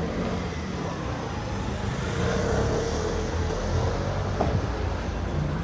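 A car driving past on a city street, its engine and tyre noise swelling about two seconds in over a steady low rumble.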